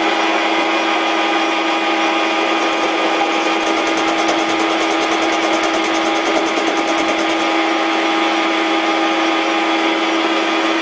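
Metal lathe running steadily with its gears whining while a turning tool cuts the end of a hard steel workpiece, an old tractor part being turned into a drill chuck arbor. A fine fast rattle joins in the middle of the cut.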